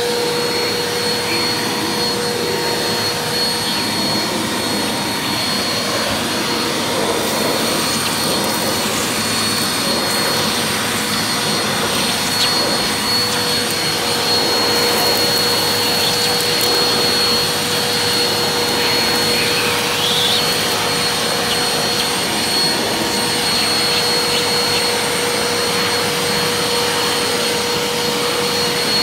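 Eureka NEU180B Power Speed upright vacuum running steadily through its hose and stair tool, sucking ground-in dust and dirt out of carpeted stairs. The motor holds an even rush with a steady high whine over it.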